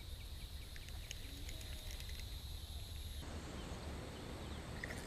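Faint outdoor background noise: a steady low rumble with a thin, steady high-pitched hum, the hiss growing a little fuller about three seconds in.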